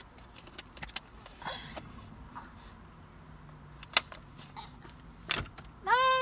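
Scattered light clicks and crinkles of a plastic water bottle and takeout containers being handled. Near the end, a young child's short, high-pitched call.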